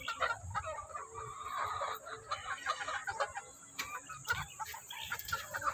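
A flock of chickens clucking and calling in short, irregular calls.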